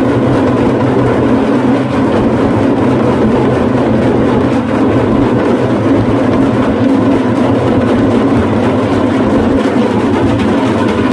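Damru pellet drums played rapidly in a steady, unbroken rattle.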